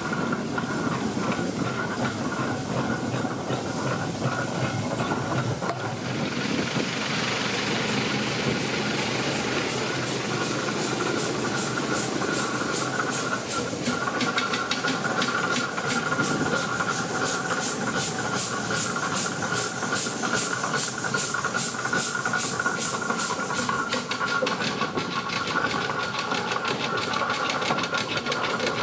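Steam traction engine working along a road: a steady hiss of steam, joined from about ten seconds in by a fast, even exhaust beat that fades again near the end.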